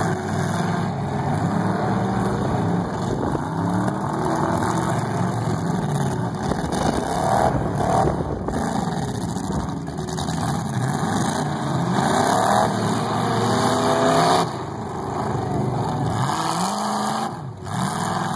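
Several demolition derby car engines running and revving together, their pitch repeatedly rising and falling as the cars accelerate and back off.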